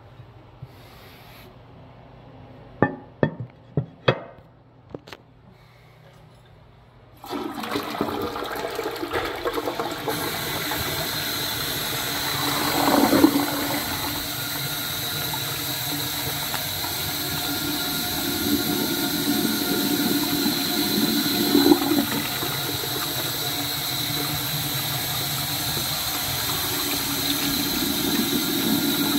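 American Standard open-rim toilet being flushed: a few sharp clicks, then about seven seconds in water rushes into the bowl and keeps running steadily, swelling briefly twice.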